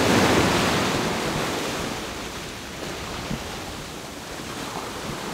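Ocean surf: a wave breaking and its foam washing up the beach, loudest about a second in and easing off as the water spreads out.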